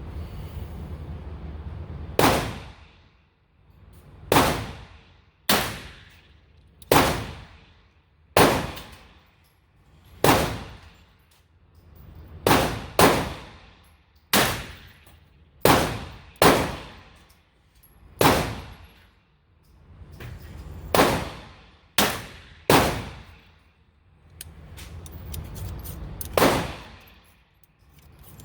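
About sixteen single gunshots from a .22 Long Rifle firearm on an indoor range, fired one at a time at uneven gaps of one to three seconds, each ringing off in the room.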